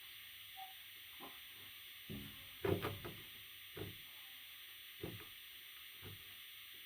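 About six soft knocks and bumps, the loudest cluster about two and a half seconds in, over a steady background hiss.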